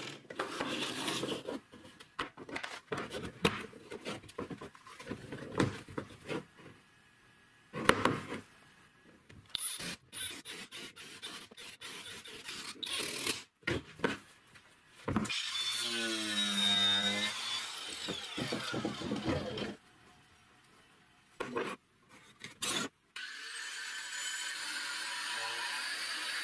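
Workshop sounds of a plastic PVC pipe cap being handled on a wooden bench: knocks, clicks and rubbing. Around the middle a power tool runs for a few seconds, and near the end an angle grinder cuts a metal disc clamped in a vise with a steady grinding noise.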